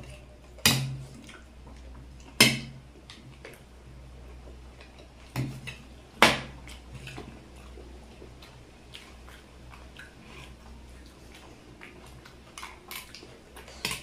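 Eating chaat: a spoon strikes a dish sharply four times, about a second, two and a half, five and a half and six seconds in. Quieter chewing and small clinks fall between the strikes.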